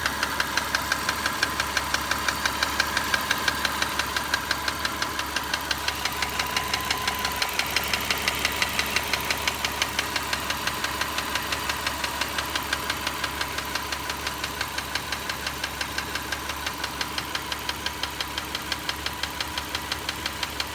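Car engine running steadily with a rapid, regular ticking that persists at normal operating temperature and was not cured by adjusting the valve clearances to spec; the owner hears it from around the alternator or timing belt area.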